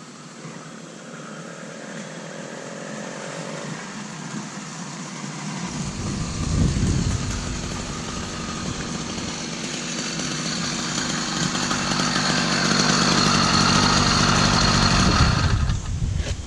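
80cc two-stroke motorized bicycle engine running as the bike comes closer, growing steadily louder, then dropping away about a second before the end.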